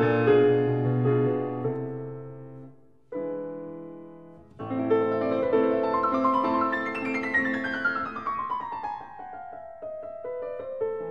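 Background piano music. The chords fade out about three seconds in, a single chord rings and dies away, and a flowing passage then starts with a long descending run of notes.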